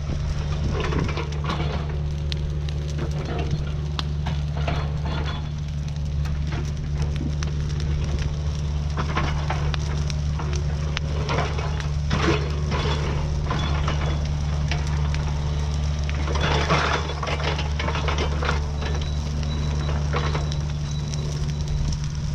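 Mini excavator's diesel engine running steadily, with irregular bursts of scraping and clatter from the machine working over it.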